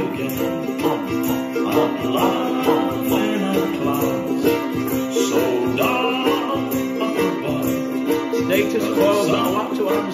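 Ukulele strummed in steady downstrokes on a C7 chord, a finger hammering on and off the third string at the second fret to make the chord flicker.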